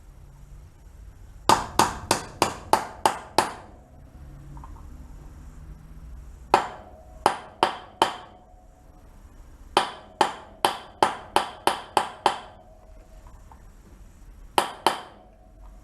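A hammer tapping on a socket to drive a new wheel bearing into a motorcycle wheel hub. The blows come in four quick runs of several strikes, about three or four a second, with a short metallic ring after some of them.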